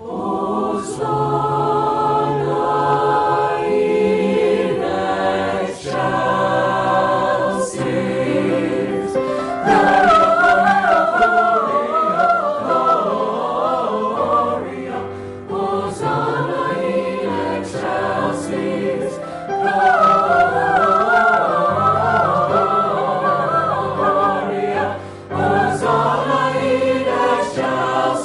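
A choir singing held chords in several phrases with short breaks between them. A high voice line with a wavering vibrato stands out in two long stretches, about ten seconds in and again about twenty seconds in.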